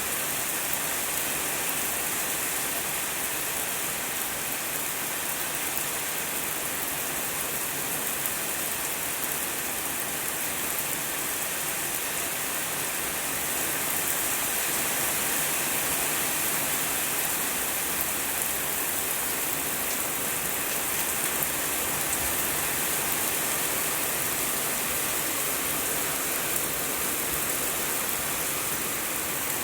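Steady rain falling and pattering on surfaces, a dense even hiss that grows slightly heavier about halfway through.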